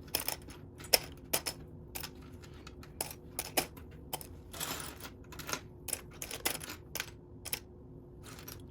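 Loose plastic Lego pieces clicking and clattering as they are picked through by hand, in irregular sharp clicks with a brief rustle of pieces sliding about halfway through.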